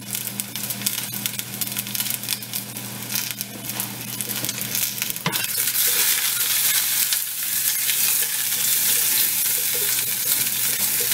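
Whole peeled potatoes sizzling and crackling in hot olive oil in a small stainless-steel saucepan, browning as the first stage of fondant potatoes. About halfway through there is a sharp click, and the sizzle gets louder as the pan is lifted and shaken to toss the potatoes.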